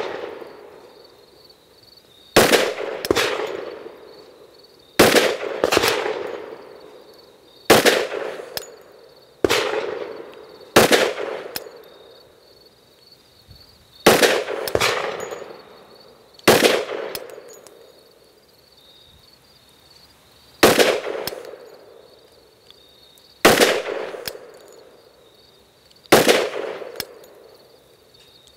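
Glock 40 Gen4 MOS 10mm Auto pistol firing about fifteen single aimed shots, one every one to four seconds with some in quick pairs, each shot followed by a short echoing decay.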